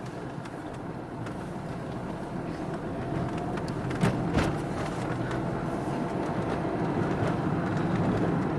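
Car driving along a road: steady engine and road noise, with two sharp knocks about four seconds in.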